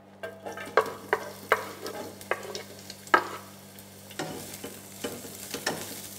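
Chunks of onion sizzling in hot olive oil in a wide frying pan, the sizzle starting as they go in. A wooden spatula stirs them, with a string of sharp knocks and scrapes against the pan.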